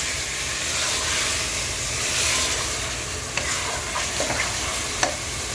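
Beef pieces with tomatoes and spices sizzling in hot oil in an open pressure cooker as a wooden spoon stirs them, with a few light knocks of the spoon against the pot. The meat is being fried (bhuna) in its masala.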